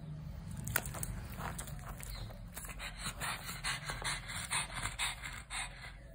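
Pug crying for a treat: a rapid, irregular run of short cries, several a second, starting about a second in.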